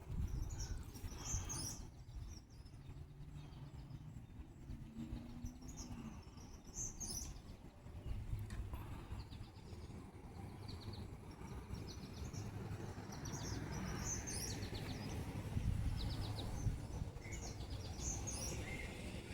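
Wild birds calling: short high chirps and quick trilled phrases, repeated at intervals, over a steady low outdoor rumble.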